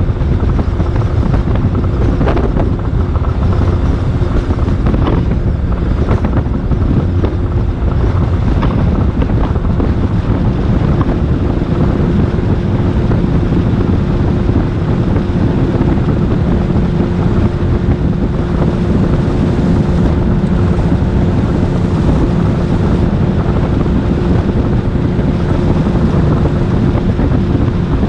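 Boat motor running steadily with a constant hum, and wind buffeting the microphone.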